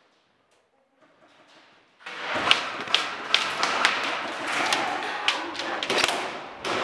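Sudden loud rush of rustling noise with irregular sharp knocks and cracks, starting about two seconds in after near silence.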